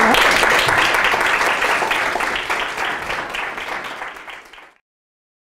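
An audience applauding with many hands clapping. The applause fades and then cuts off abruptly about four and a half seconds in.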